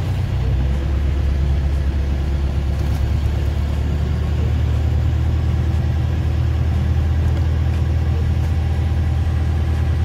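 A small fishing boat's engine running steadily, a low, even rumble.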